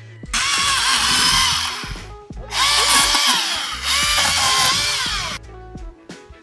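Sur-Ron electric dirt bike's motor whining up and down in three throttle bursts, spinning a 24-inch saw blade fitted as the rear wheel, with a loud hiss over it; it cuts off suddenly near the end. Music plays underneath.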